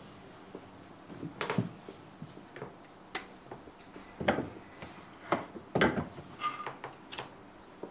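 Irregular wooden knocks and clacks, about ten of them, as a wooden plane block and small hand tools are picked up, turned and set down on a wooden workbench.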